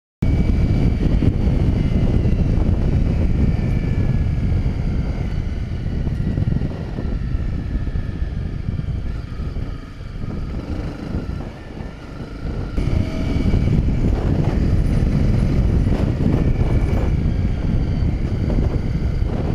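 Honda CRF250 Rally's single-cylinder engine running under way, with wind rushing over the camera microphone. The engine eases off about ten seconds in and picks up again a couple of seconds later.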